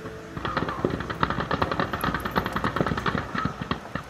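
Distant gunfire from automatic weapons: rapid, irregular strings of shots that start about half a second in and go on almost to the end, over a background hiss.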